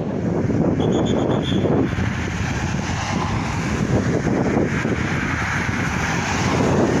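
Wind buffeting the microphone over the noise of road traffic, with a car driving past near the middle. About a second in come a few short, high beeps.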